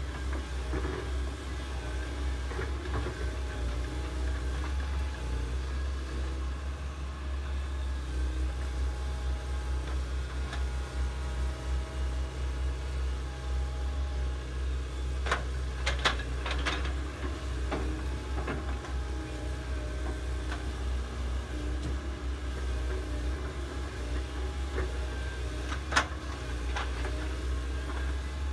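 Diesel engines of several hydraulic excavators, one a Komatsu, running as they dig, a steady drone with a deep low rumble. A quick cluster of sharp knocks a little past halfway and one more near the end.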